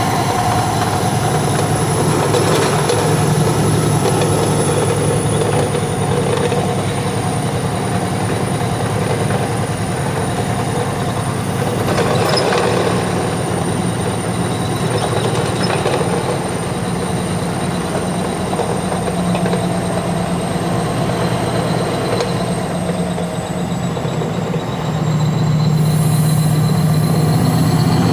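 Heavy diesel engine running steadily with a low hum, and a faint thin high whine over it.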